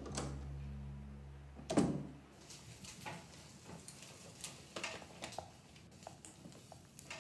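A door shutting with one sharp knock under a low sustained music drone, which ends just after; then faint scattered clicks and clinks of kitchen utensils and dishes.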